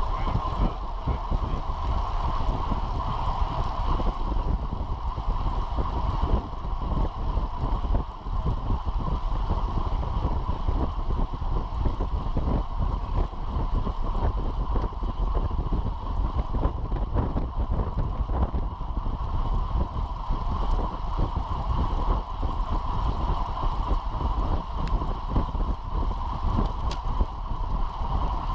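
Wind buffeting the microphone of an action camera on a road bicycle at about 25 mph, mixed with the steady rumble of the tyres on asphalt.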